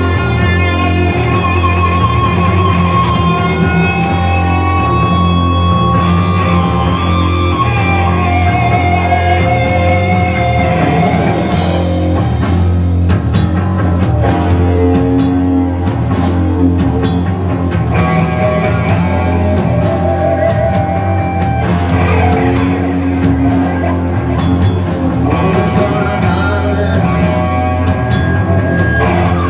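Rock band playing live, with guitars over bass and drum kit. The full drums and cymbals come crashing in about eleven seconds in.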